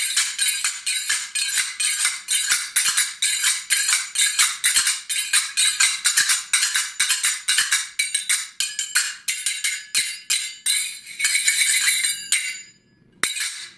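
Brass finger cymbals (sagat) played in a fast, steady rhythm of bright metallic clicks and rings, several strokes a second. The pattern stops shortly before the end, and one last clash follows.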